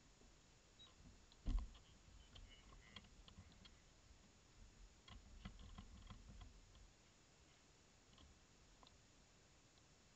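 Near silence, with faint clicks, one dull thump about a second and a half in, and light knocks around five to six seconds in, from hands handling the stationary go-kart. The kart's engine is not running.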